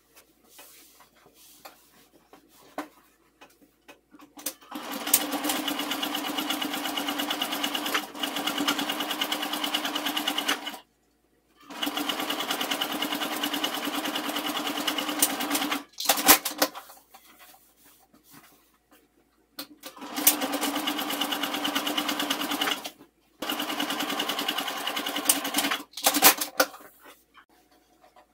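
Electric sewing machine stitching a seam in four runs of a few seconds each, stopping and restarting, with a few sharp clicks and fabric rustling between runs.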